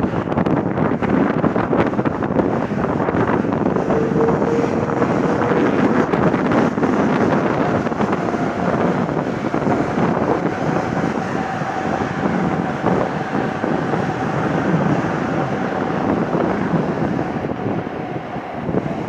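Wind buffeting the microphone over the steady noise of an Airbus A330-300's Rolls-Royce Trent 700 jet engines, with a faint high whine holding steady through the middle; the noise eases slightly near the end as the airliner turns away.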